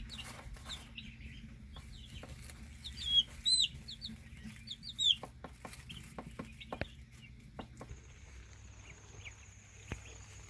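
Young Cornish meat chicks, about three weeks old, peeping in short high calls that are bunched about three to five seconds in, with scattered light knocks.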